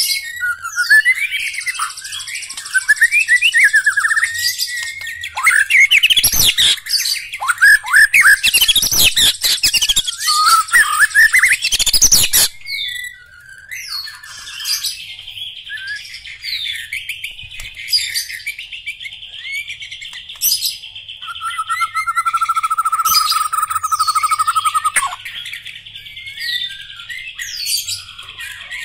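White-rumped shama (murai batu) singing loudly: a dense run of rapid, varied whistles and chirps for the first twelve seconds or so, then steadier high trilled phrases with a held whistle near the end.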